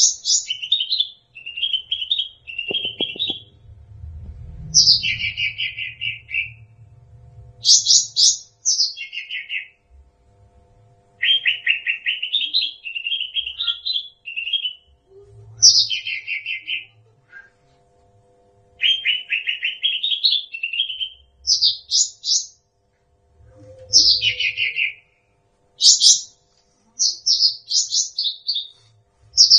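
Cucak rante songbird singing: a string of repeated phrases, each a fast chattering trill that starts high and drops lower, about a dozen phrases with short pauses between.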